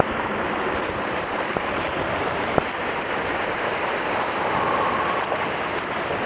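Sea waves washing against a rocky shoreline, a steady rush of surf with wind on the microphone. A single sharp click about two and a half seconds in.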